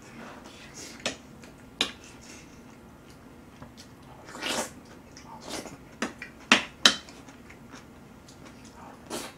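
Eating sounds: chopsticks clicking sharply against the dishes several times, and a short slurp as a mouthful goes in about halfway through.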